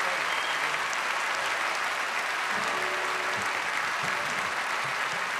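Concert audience applauding steadily. From about halfway through, a few pitched notes from the instruments on stage sound through the clapping.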